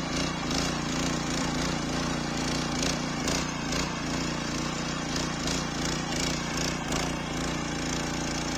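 5.5 hp engine of a walk-behind rotary tiller running steadily under load as its tines churn through the soil, with scattered faint clatters.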